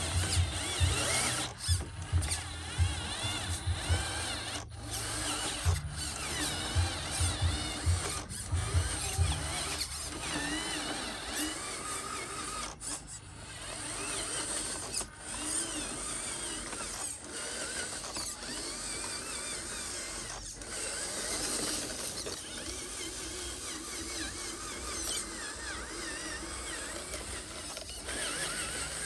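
Small electric motors and plastic gearboxes of radio-controlled model construction machines whining, their pitch rising and falling as the machines speed up and slow down, with a rough low rumble for roughly the first ten seconds.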